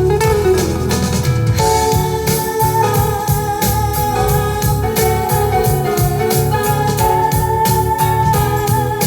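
Recorded music with a steady beat, keyboard and guitar over heavy bass, played back through a PS-15A speaker cabinet and an AJC-505 column speaker with an AJC 15-700 subwoofer added.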